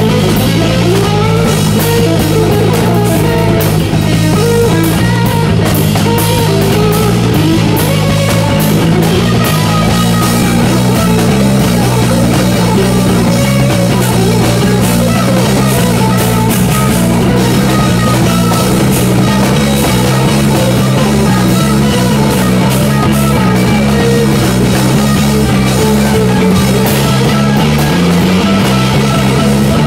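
Live rock band playing loudly without a break: a twelve-string electric guitar over electric bass and a drum kit.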